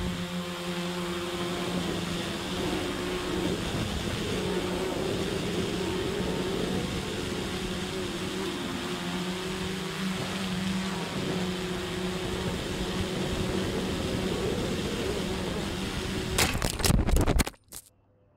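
Homemade multirotor drone's motors and propellers whining steadily, heard from a phone mounted on its frame, with a rush of air over the microphone. About sixteen seconds in comes a burst of loud knocks and cracks as the drone crashes, then the sound drops to near silence.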